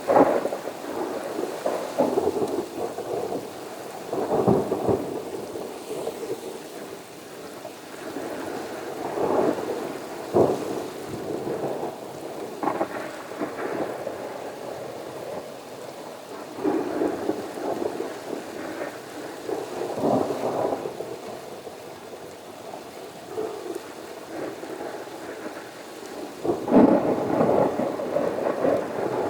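Thunder rumbling again and again over steady rain, in repeated swells a few seconds apart, the loudest near the end.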